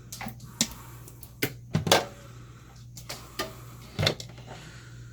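Crock pot being moved and handled on a counter: a few sharp knocks and clinks, the loudest about two seconds in and another near the end, over a steady low hum.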